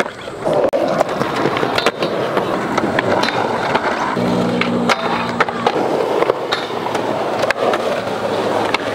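Skateboard wheels rolling on concrete, with repeated sharp clacks of boards hitting the ground. Around the middle a low drone with a steady pitch lasts about a second and a half.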